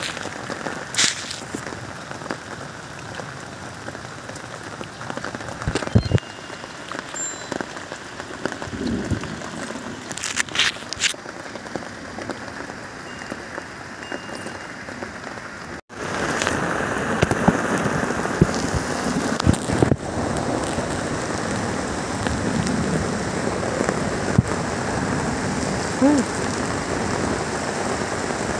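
Heavy rain falling steadily, some of it on a plastic tarp, with scattered drop hits and knocks. After a sudden break about halfway through, the rain is louder and denser.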